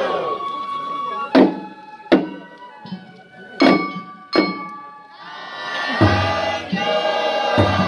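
Festival float music: a chorus of voices trails off, then a held flute-like melody carries on under four sharp drum strikes, and the group singing swells back in about five seconds in.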